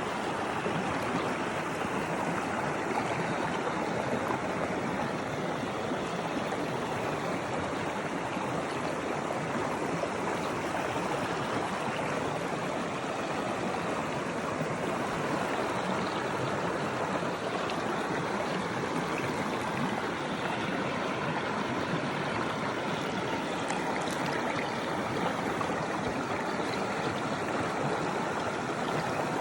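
Stream of clear water running and gurgling over rocks, a steady splashing rush.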